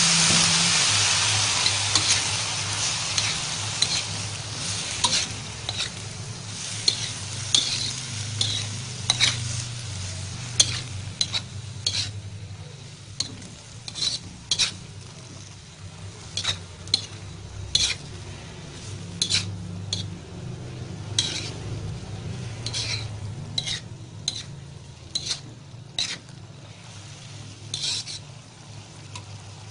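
A spatula scraping and tapping against a wok as eggplant pieces are stir-fried, in irregular strokes throughout. Under it the pan sizzles, loudest at the start just after a little water has gone in and dying down over the first several seconds, with a low steady hum beneath.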